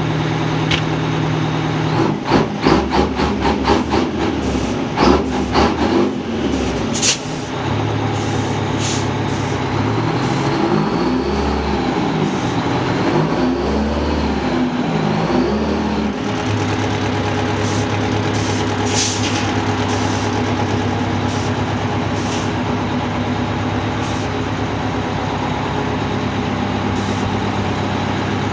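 Detroit Diesel two-stroke V8 fire-truck engines running, one revving up and down as the truck pulls away, with short air-brake hisses and chuffs in the first several seconds. The revving gives way to a steady idle about sixteen seconds in.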